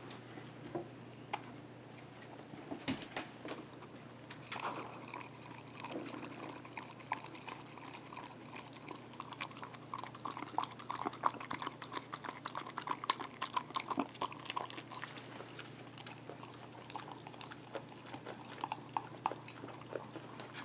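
Dogs licking salad dressing out of a drinking glass: a quick run of wet laps and small tongue clicks against the glass, starting a few seconds in and busiest in the middle.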